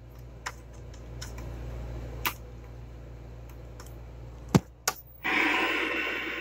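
Pliers clicking on the pull-on volume/power switch of a 1978 Hitachi 9-inch solid-state colour portable TV, over a low steady hum. The switch snaps on with a sharp click, and about half a second later the set gives a loud buzzing hiss. This fault behaviour comes back even with a substitute filter capacitor bridged in, and the owner suspects a part is shorting.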